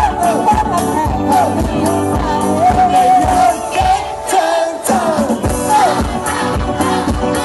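Live band playing a pop song to a steady drum beat, with voices singing the melody into microphones; the drums and bass drop out briefly about four seconds in.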